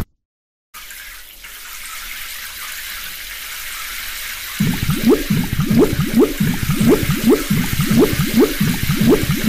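Car-wash water spray: a steady hiss of spraying water, joined about halfway by rhythmic rising swishes close to three a second, like spinning wash brushes.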